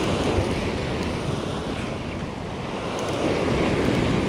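Surf breaking and washing against a rock ledge: a steady rushing of sea water that eases a little about halfway and builds again.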